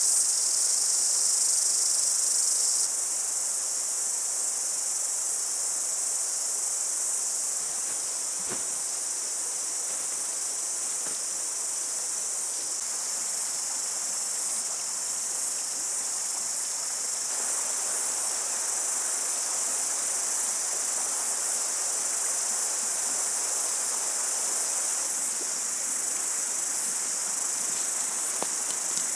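Dense, steady high-pitched chorus of insects in the bush, unbroken, a little louder for the first three seconds.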